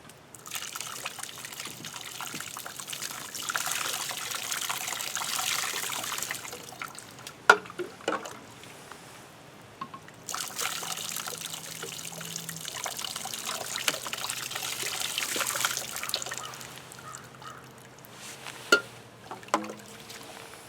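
Hot water being poured into a frozen, ice-blocked drain to thaw it, in two long pours of about seven seconds each, with a few sharp knocks between and after them.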